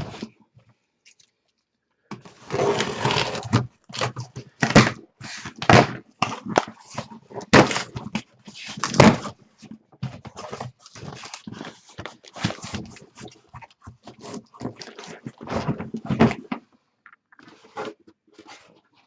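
Rustling, scraping and irregular knocks of cardboard card boxes and their packaging being handled and opened.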